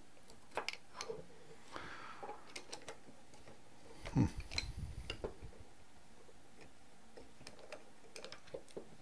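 Scattered small clicks and taps of a hex screwdriver and nut wrench working the bolts of a quadcopter's landing-gear mount, with one louder knock about four seconds in.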